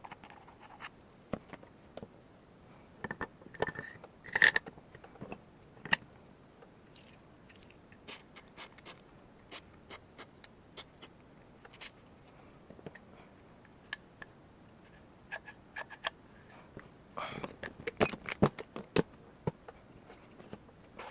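Small parts of an airsoft gas blowback rifle being handled and fitted together: scattered clicks, taps and short scrapes. The loudest click comes about four seconds in, and a busier run of clicks and scrapes follows near the end.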